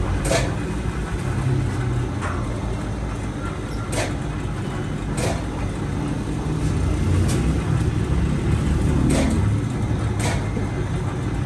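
Steady low mechanical rumble of a bakery's conveyor bread oven running, with sharp clicks or knocks every one to two seconds as barbari dough is handled and laid on the moving hearth.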